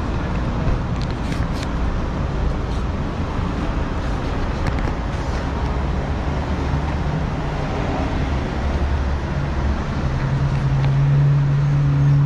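Road traffic with a vehicle engine running close by, a steady low rumble whose hum grows louder near the end. A few light clicks in the first few seconds.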